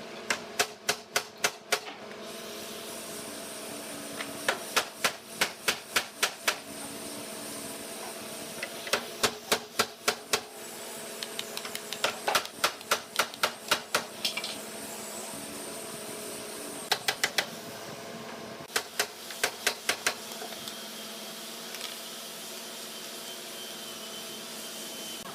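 Pneumatic nail gun fired in quick runs of sharp shots, about five a second, in several bursts with short pauses between them, over the steady hum of a running machine.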